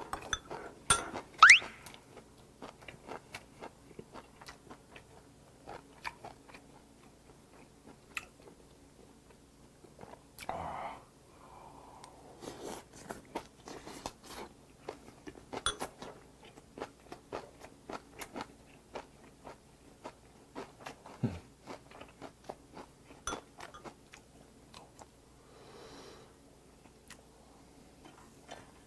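Close-miked chewing of a mouthful of rice, grilled pork belly and kimchi, with many small wet mouth clicks and crunches. A brief rising squeak about a second and a half in is the loudest sound.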